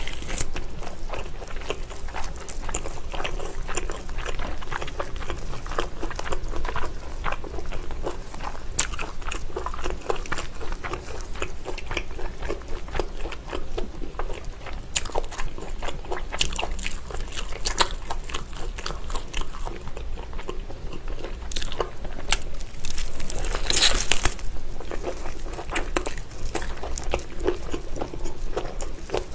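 Close-miked biting and chewing of a whole braised pig's trotter (jokbal): wet, sticky mouth sounds with many small clicks. There are louder crackly bursts a little past halfway and again about four-fifths of the way through.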